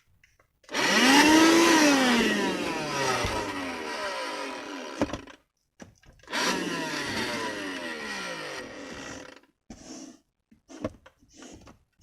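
Portable car vacuum cleaner motor switched on twice. Each run lasts a few seconds, dips in pitch and cuts off abruptly. A few light knocks follow near the end.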